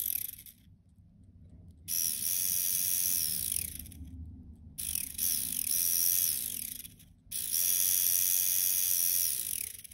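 Small hand blender's DC motor whining at high speed, powered by a single-cell homemade lead-acid battery of about 2.1 volts. It cuts out about half a second in, then runs three more times, each run starting abruptly and stopping when the contact is broken.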